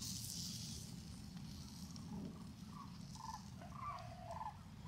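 A series of short bird calls, faint and repeated, starting about halfway through over a steady low rumble, with a brief hiss right at the start.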